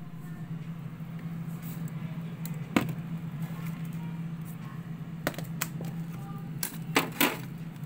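Hard plastic food storage containers knocking and clacking as they are handled and shifted on refrigerator shelves, in a handful of separate knocks with the sharpest cluster near the end. A steady low hum runs underneath.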